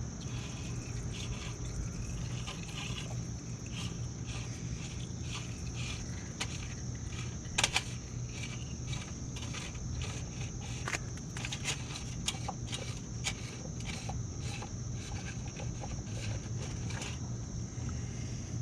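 Scattered light clicks, taps and scrapes of tools and parts being handled during hand work on a motorcycle, with one sharper knock a little under halfway through, over a steady background hum.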